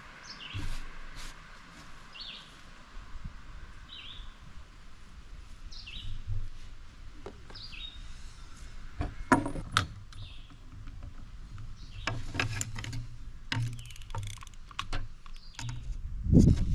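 Small songbird chirping, short high calls every couple of seconds, with scattered sharp clicks and knocks in the second half and a heavier low thump near the end.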